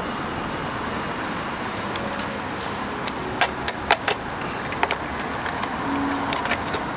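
Metal tools clinking and tapping against a pit bike's rear axle and chain while a chain that came off is refitted: a dozen or so sharp clicks starting about three seconds in, over a steady background noise.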